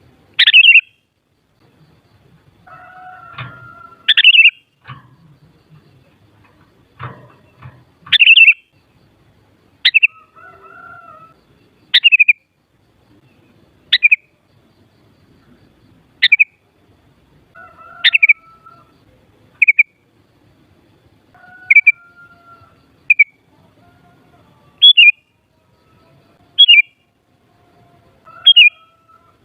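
Sooty-headed bulbul (kutilang) calling. Short, sharp falling notes repeat about every two seconds, with fainter, lower call notes between some of them.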